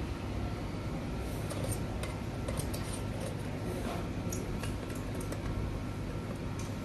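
A run of light, irregular clicks over a steady low background hum.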